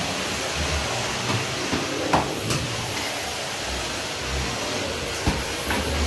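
Vacuum cleaner running steadily as its floor head is pushed over a tiled floor, with a few brief knocks around two seconds in and again just after five seconds.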